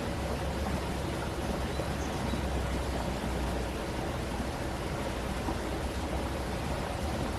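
Steady rush of a flowing stream, with a low rumble underneath.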